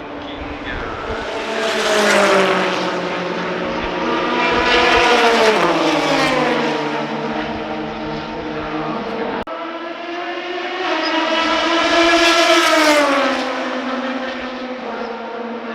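Race cars passing at speed, three in turn, each engine note loud as it goes by and then dropping in pitch as it moves away. The sound cuts abruptly about halfway through, then another car comes past.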